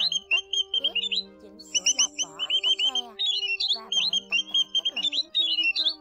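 White-headed munias calling: a dense chatter of short, high repeated notes, with lower sliding notes underneath and a brief lull about a second and a half in.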